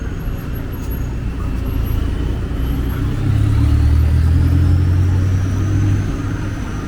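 A motor vehicle passing close by on the street, its low engine rumble swelling to a peak about halfway through and then easing off, with a faint whine rising in pitch, over steady traffic noise.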